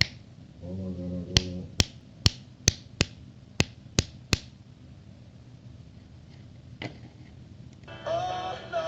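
Finger snaps: eight sharp snaps in quick succession, then a single fainter one a couple of seconds later, made as sound input to test an FC-04 sound sensor on an Arduino.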